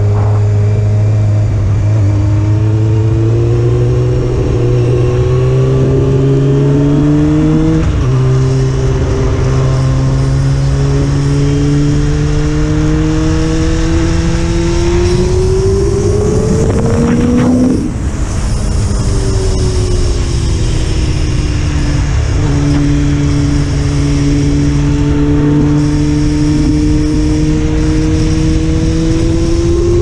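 Honda CBR600 F4 sport bike's inline-four engine under way. The revs climb steadily, drop with an upshift about eight seconds in, and climb again until the throttle is shut a little past halfway. They then fall away and settle into a steady cruise, rising slowly near the end.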